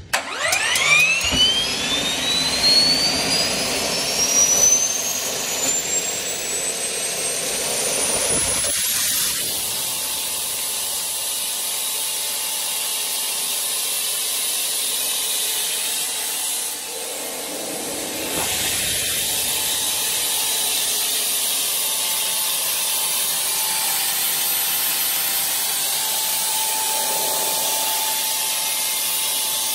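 Garrett GTP30 diesel-fuelled gas-turbine APU starting up: a whine climbs steadily for about nine seconds as the turbine spools up, then holds at a steady high pitch over a loud rushing of air and exhaust.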